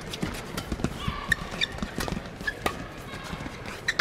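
Doubles badminton rally: repeated sharp racket hits on the shuttlecock, mixed with short squeaks of shoes on the court floor.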